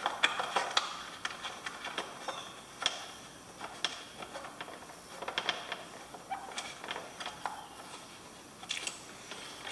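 Irregular small clicks and taps from hands working a PG9 cable gland on a dry box, feeding wires through it and tightening its cap down onto them.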